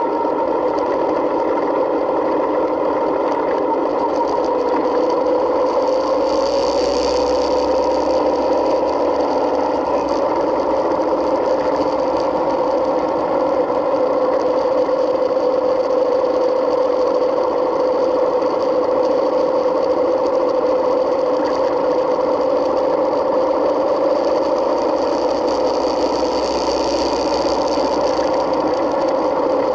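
Yamaha Midnight Star 1900's air-cooled V-twin engine running at a steady cruising pace, picked up by a camera mounted on the motorcycle. Its pitch rises slightly about four seconds in and then holds.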